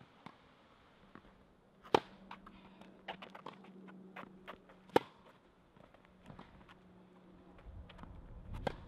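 Tennis ball struck hard by a racket twice, about three seconds apart, with lighter taps of ball bounces and footwork in between, over a faint steady low hum.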